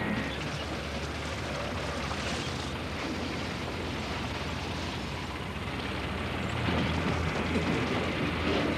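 Cartoon soundtrack sound effect: a steady noisy rumble with a low hum beneath it, swelling slightly in the second half.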